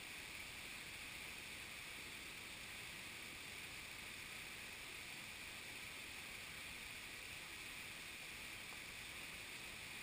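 Steady rush of running stream water, an even hiss with no distinct splashes or other events.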